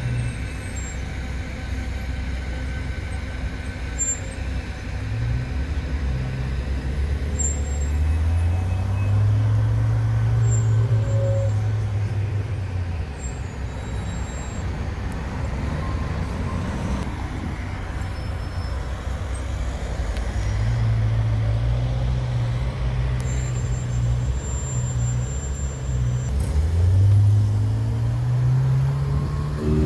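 Ferrari 488 Spider's twin-turbo V8 running at low revs in slow traffic, its note stepping up and down as it rolls along, then rising as it accelerates near the end.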